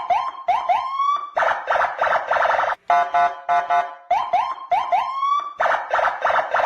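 Electronic police patrol siren and horn ('klakson'), in the short-burst pattern Indonesian patrol cars use. A few quick rising whoops are followed by a run of harsh buzzing horn blasts at about four a second. The cycle plays twice.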